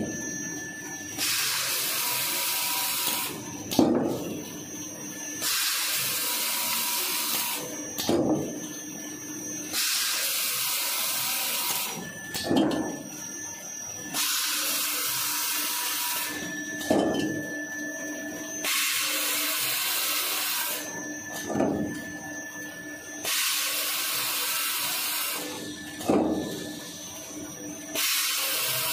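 An automatic jumbo roll toilet paper log saw running through its cutting cycle over a steady machine hum. About every four and a half seconds comes a two-second hiss, then a sharp clunk, six clunks in all.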